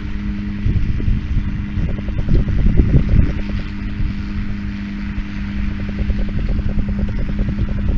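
Farm tractor running steadily while baling hay, with a constant engine hum over a fast even pulse and a heavy low rumble. It gets louder and rougher for about a second, two to three seconds in.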